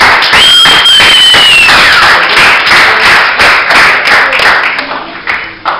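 Spectators applauding hard and close by, with one sharp whistle that holds steady for over a second and then falls in pitch. The clapping thins out near the end.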